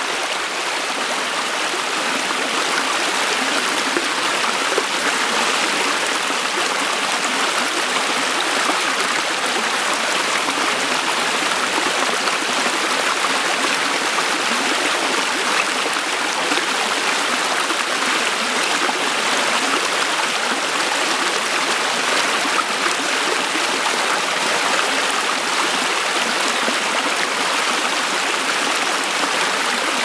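Small rocky stream spilling over a low ledge of stones into a shallow pool: a steady rush and splash of water.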